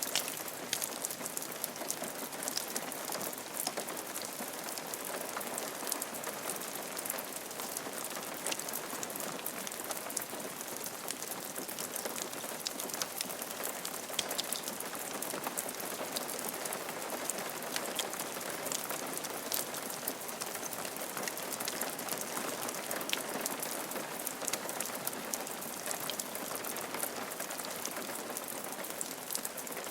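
Steady rain falling on a roof, an even patter with many individual drops ticking sharply over it.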